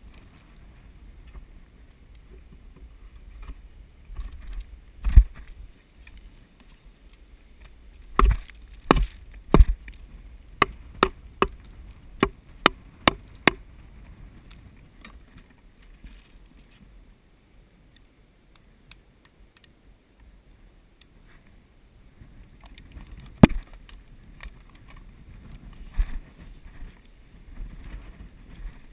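Wooden nest box being set into a chainsawed cavity in a dead tree: scattered wooden thumps, then a quick run of about seven sharp knocks, each under half a second apart, with two more later. Low wind rumble on the microphone underneath.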